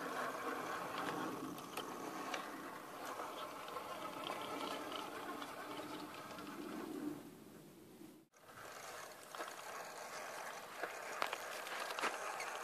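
A 1/10-scale RC rock crawler, its electric motor and RC4WD geared drivetrain whining steadily as it climbs, with the tyres scrabbling and small stones clicking on rock. The sound breaks off for a moment about eight seconds in and then carries on, with a steady whine and scattered clicks.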